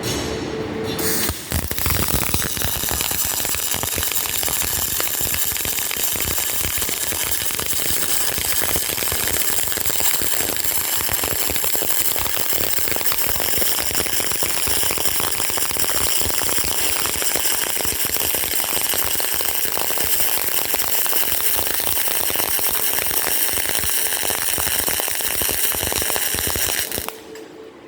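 Electric arc welding: the arc crackles and sizzles steadily, starting about a second in and cutting off shortly before the end.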